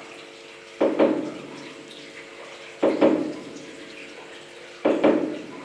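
Water splashing in a steady rhythm: three splashes about two seconds apart, each trailing off in an echo.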